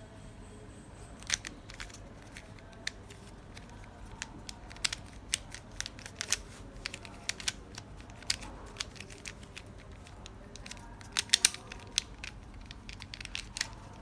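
Irregular sharp clicks and crinkling from a Qiyi mirror cube and its packaging being handled, with a quick run of clicks about eleven seconds in.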